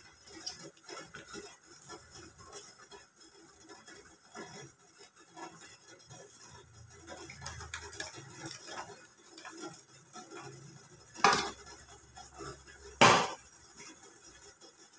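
Stainless steel cookware being handled: light taps and clinks as banana-leaf parcels are laid on a steel steamer tray, then near the end two loud metal clanks about two seconds apart, fitting a steel plate being set down on the counter.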